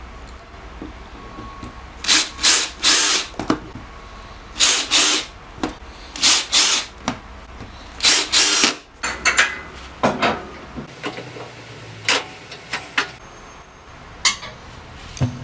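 Power drill driving screws through a lathe faceplate into a wooden blank in four short bursts. Scattered clicks and knocks follow in the second half.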